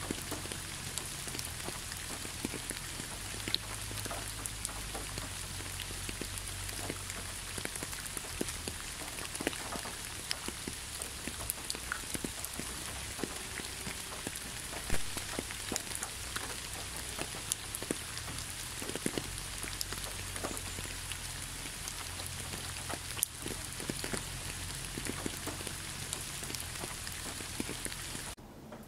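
Steady rain with many scattered individual drop hits. It cuts off suddenly to a quieter sound just before the end.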